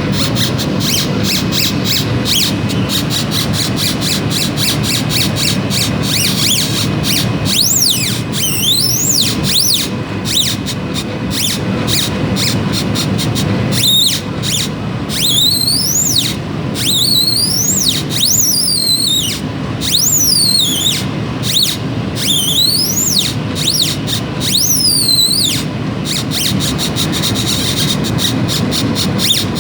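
Stepper motors of a CNC laser engraver whining as the head rasters back and forth. The whine rises and falls in pitch with each move, over rapid stop-start ticking and a steady low hum.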